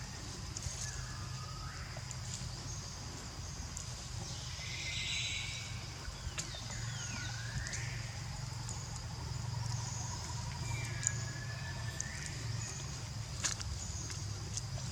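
Monkey calls: several short, high-pitched calls that fall and sweep in pitch, spaced a few seconds apart, over a steady high whine and a low hum.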